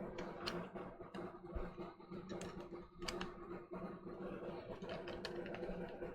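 Light, irregular clicks and taps of small tools and parts handled on a controller circuit board during soldering work, over a steady low electrical hum.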